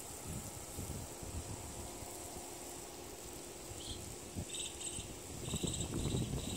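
Outdoor summer ambience: insects droning steadily, with short chirps repeating in quick groups from about halfway through. Uneven low rumbling runs underneath, growing louder near the end.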